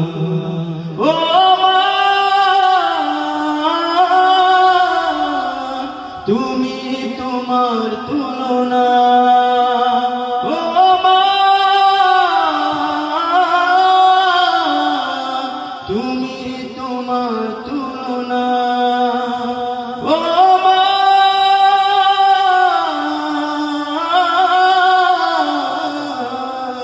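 Background music: a Bangla gojol, a devotional song sung by voice alone, here in a wordless passage. A singing voice holds long notes in arched phrases that rise and fall and repeat about every four to five seconds.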